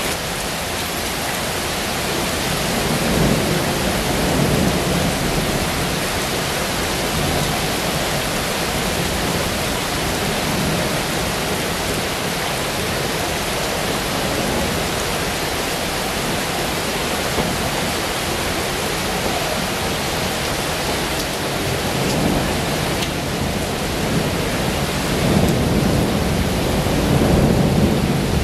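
Heavy rain pouring steadily, with low rumbling swells a few seconds in and again near the end.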